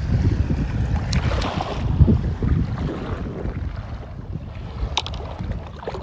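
Wind buffeting the phone microphone in a low rumble, stronger in the first half and easing off later, over shallow seawater splashing as a hand reaches in among the shells. A brief sharp click comes near the end.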